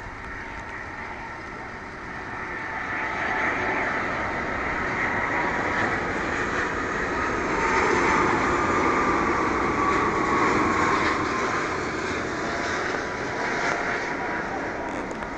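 Rolls-Royce Trent 700 turbofans of an Airbus A330-300 on landing approach, passing low overhead. The jet noise swells to a peak about halfway through, the engine whine gliding down in pitch as it passes, then eases off.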